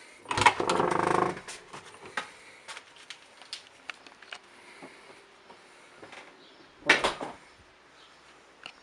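A series of knocks and clicks, with a loud creaking, knocking stretch in the first second and a half and another loud knock about seven seconds in.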